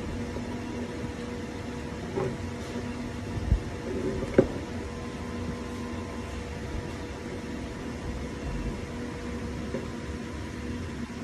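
Steady electrical hum of a high-frequency welding machine, with a low knock about three and a half seconds in and a sharper click a second later.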